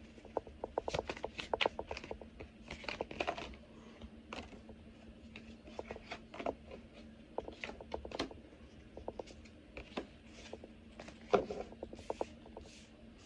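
Tarot cards being shuffled and handled: irregular runs of soft flicks, snaps and taps, busiest in the first few seconds and then more scattered.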